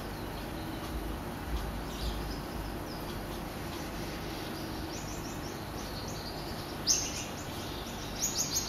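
Reef aquarium equipment running: a steady hum and water-flow noise from the tank's pumps and filtration. Short high chirps come through now and then, with a sharper click about seven seconds in and a quick run of clicks near the end.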